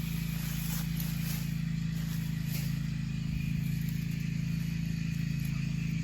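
A motor running steadily: an even low hum with a hiss above it.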